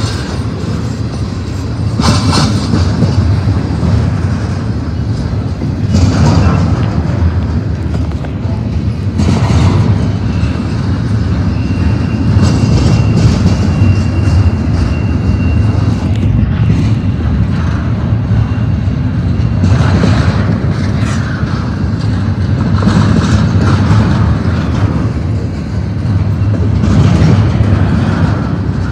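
Double-stack intermodal well cars rolling past: a steady heavy rumble of steel wheels on rail, with a louder clatter every few seconds as each set of trucks goes by.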